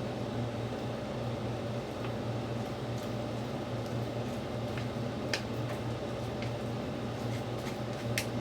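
Steady machine hum, like a fan or appliance running, with a few short sharp clicks over it, the loudest about five seconds in and another near the end.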